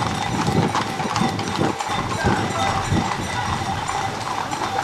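Many horses' hooves clip-clopping at a walk on a paved street, over the noise of a crowd on foot moving among them.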